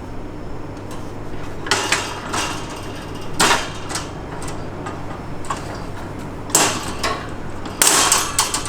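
Wire bar panels and plastic frame pieces of a Vision bird cage being handled and fitted together: a series of short clattering knocks and rattles, about two seconds in, around three and a half seconds, and again in the last two seconds, over a low steady hum.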